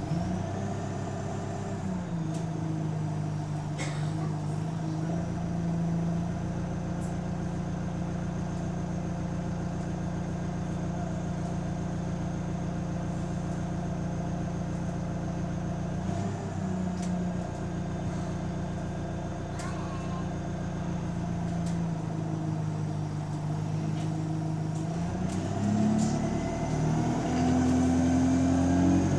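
Bus engine and drivetrain heard from on board, the engine note shifting in pitch several times and climbing near the end as the bus accelerates. A thin high whine runs above it. The bus has an exhaust leak.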